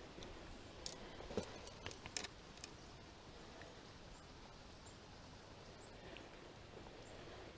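Faint clicks and light rustling from hands handling a caught brook trout and its fishing line, bunched in the first three seconds, over a faint steady background hiss.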